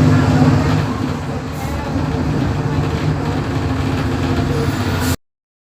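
Volksbus 17.230 EOD bus engine running with a steady low drone, easing slightly in level about a second in. It cuts off abruptly near the end.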